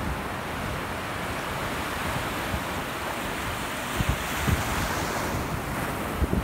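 Ocean surf: waves breaking and washing up the beach in a steady rushing noise, with wind rumbling on the microphone in a couple of short gusts about four seconds in.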